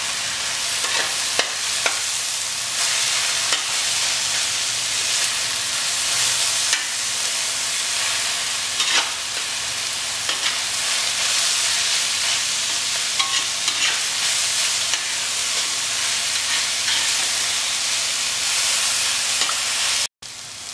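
Chopped onions and tomatoes frying in oil in a metal kadhai, a steady sizzle, while a metal spatula stirs and scrapes the pan with scattered clicks. The sound cuts out abruptly for a moment near the end.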